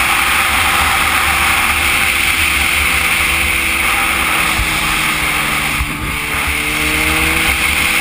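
Motorcycle engine running at highway speed, largely covered by a steady, heavy wind rush on the bike-mounted camera's microphone. A rising engine note comes in over the last couple of seconds.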